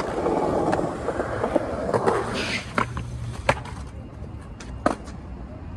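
Skateboard wheels rolling over concrete pavement, then three sharp clacks of the board striking the ground, the loudest about three and a half seconds in.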